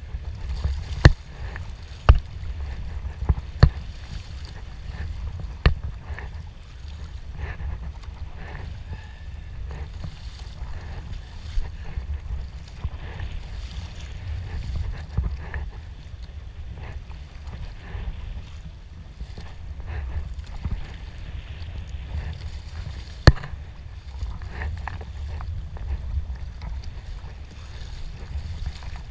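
Sea kayak being paddled: paddle blades dipping and splashing in the water stroke after stroke, over a steady low wind rumble on the microphone, with a few sharp knocks, the loudest about 23 seconds in.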